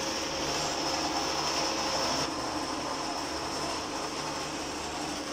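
Steady mechanical hum with a high hiss, like machinery running. The hiss drops a little about two seconds in.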